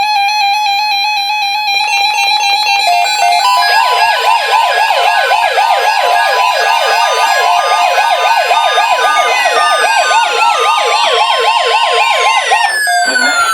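NOAA Weather Radio tornado watch alert on a Midland WR-120 weather radio. It opens with short beeping digital header tones. From about three and a half seconds in, a steady alarm tone plays together with a warbling siren that sweeps up and down about four times a second, and falling whistles join near the end. All of it cuts off suddenly shortly before the end.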